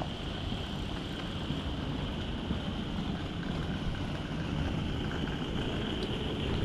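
Wind rumbling on a walking camera's microphone over quiet residential street ambience, steady throughout with a faint even hiss.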